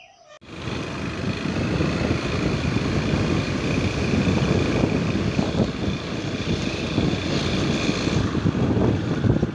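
Wind rushing over the microphone of a moving motorbike, with the bike's engine running underneath; it starts suddenly about half a second in and stays steady.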